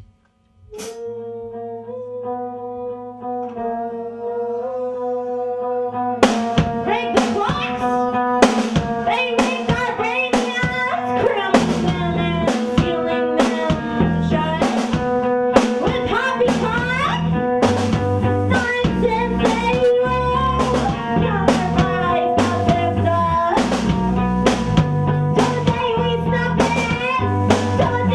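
Band music: the song opens on held, swelling notes, and about six seconds in drums and bass come in, with the drum kit keeping a steady beat under the guitar.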